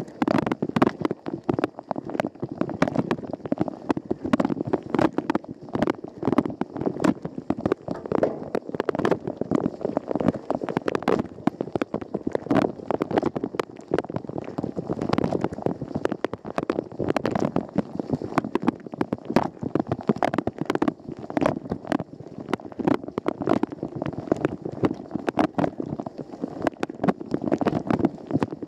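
Water spraying and splashing inside a Rosenlew dishwasher tub during the wash cycle, heard from inside: a dense, irregular patter of splashes striking the walls and racks.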